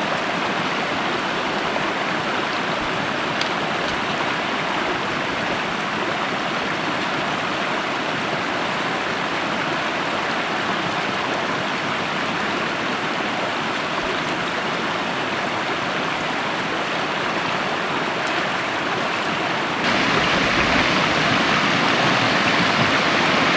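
A fast-flowing forest brook: a steady rush of running water, which turns abruptly louder and fuller near the end.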